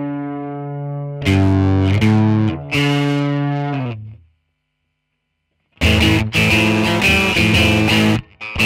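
Distorted electric guitar played through a Buzz Sound Bazooka Joe preamp pedal. Chords are struck and left to ring out and fade, then after about a second and a half of silence comes a choppy, rhythmic riff of short chords.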